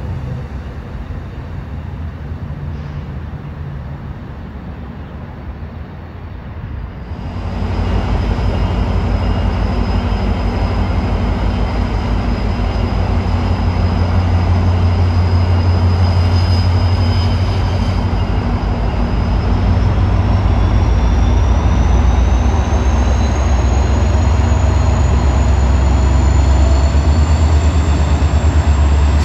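Metrolink diesel locomotive approaching with its train. After a quieter train rumble, its engine comes in about seven seconds in, loud and steady with a deep low drone, and a faint high whine slowly rises in pitch in the second half as the train draws closer.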